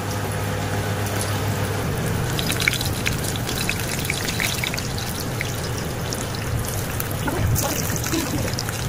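Cubes of food shallow-frying in hot oil in a nonstick pan, with a steady sizzle and quick crackles that grow busier about two seconds in as more pieces go into the oil.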